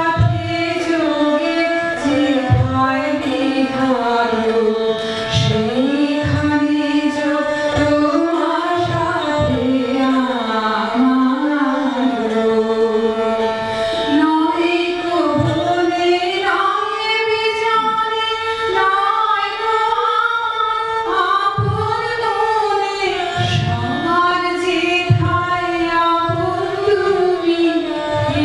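A woman singing with esraj accompaniment, the voice and the bowed strings holding long notes that slide up and down between pitches.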